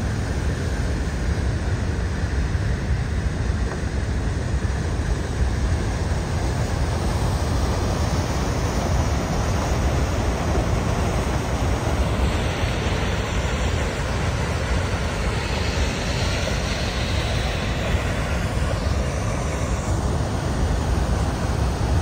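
Steady rush of water pouring over Niagara Falls, a deep, even noise heaviest in the low end.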